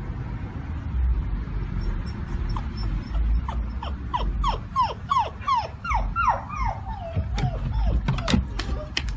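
Dog whining: a run of short, falling whines, about two a second, over a low rumbling background, with a few sharp clicks near the end.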